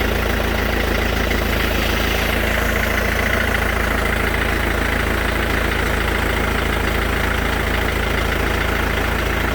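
Mercedes-Benz S212 E 220 CDI's four-cylinder diesel engine idling steadily with a clacking noise.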